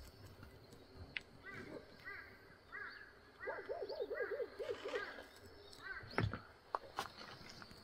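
Birds calling: a series of short, repeated arching chirps, with a quick run of about six lower notes in the middle. A sharp knock sounds about six seconds in.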